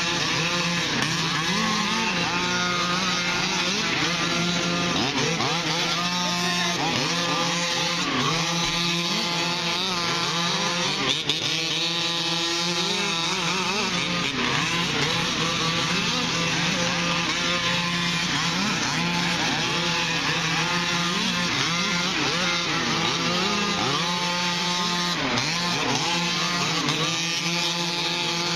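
Several 1/5-scale RC cars' small two-stroke gas engines running together, each one's pitch repeatedly rising and falling as it accelerates and lifts off.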